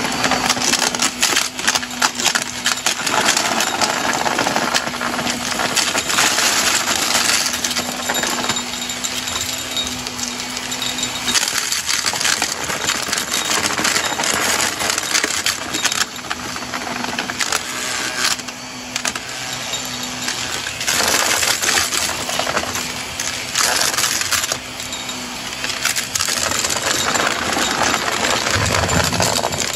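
Shark upright vacuum cleaner running over carpet, sucking up a scattered pile of small hard bits and lint that rattle and crackle through the nozzle in dense runs of clicks over the motor's hum.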